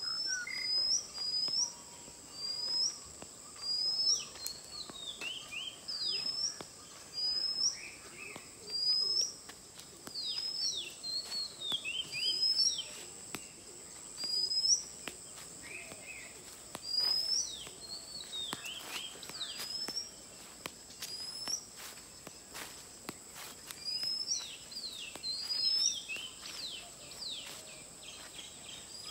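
Birds calling all around: repeated short rising chirps and quick falling whistles, one or two a second. Underneath runs a steady high-pitched insect drone.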